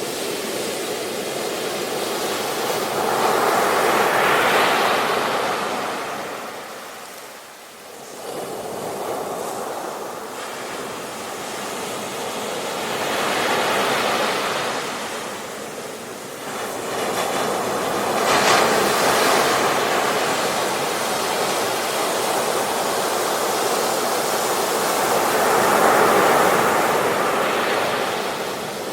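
Ocean surf on a beach: waves swelling and breaking one after another every several seconds, with a brief lull about seven seconds in.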